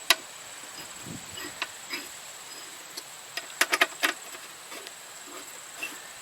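Irregular sharp clicks and light metallic knocks from hand tools and seat bolts as a motorcycle seat is fitted and bolted down. The loudest comes just after the start and a quick cluster comes about halfway through, over a steady faint high-pitched tone like insects.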